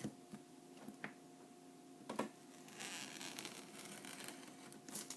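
Faint handling of a cardboard box and its packaging: a few light knocks, a louder knock near the end, and a stretch of rustling in the middle.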